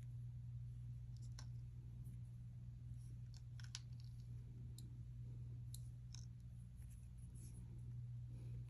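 Small metal jewelry pieces (earrings) clicking faintly as they are picked up and set down, a dozen or so scattered light clicks, over a steady low electrical hum.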